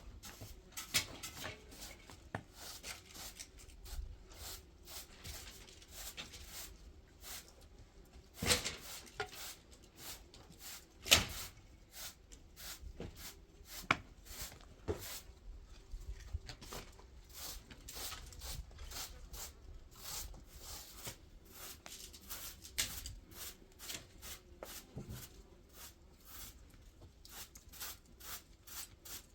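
Irregular light knocks, taps and clicks of hand work, with two sharper, louder thumps about eight and a half and eleven seconds in.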